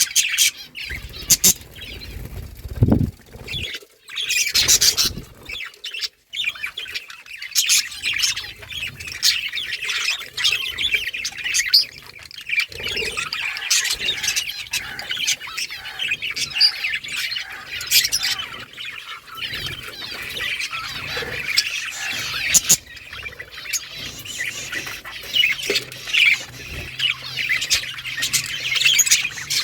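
Several budgerigars chirping and singing without pause, a busy overlapping chatter, with a few sharp clicks in between.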